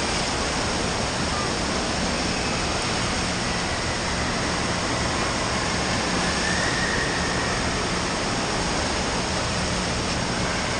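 Steady rush of water from an indoor water park's falls and splashing features, with faint distant voices in the mix.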